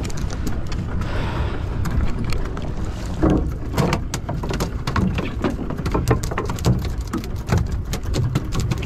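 Steady low rumble aboard a small fishing boat, with many irregular sharp clicks and taps throughout.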